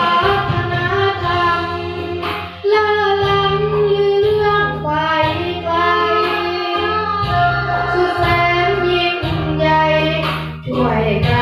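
A boy sings a Thai song into a handheld microphone over an instrumental backing track. His voice moves from note to note, with brief breaths between phrases, over held bass notes.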